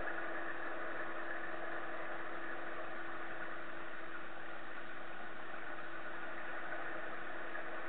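Steady mechanical hum heard underwater in a swimming pool: a constant low drone with a hiss above it, unchanging throughout.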